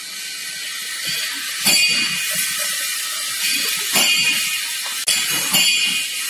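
Steady high-pitched hiss with a few soft knocks, under faint background music.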